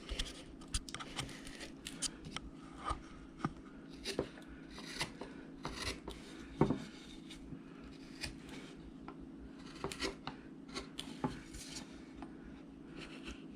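Hand gouge cutting into a wood carving: a run of short, irregular slicing and scraping strokes, with the loudest one a little past the middle.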